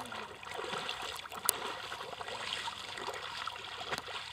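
Feet wading through a shallow muddy puddle, water splashing and sloshing with the steps, with one sharp click about a second and a half in.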